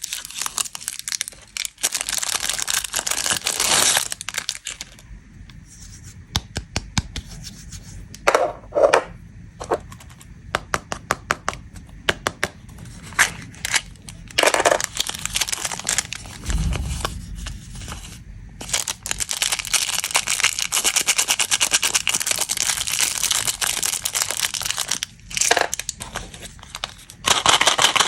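Plastic snack wrappers being crinkled and torn open: long spells of dense crackling, with sparser sharp crinkles and clicks in the middle stretch.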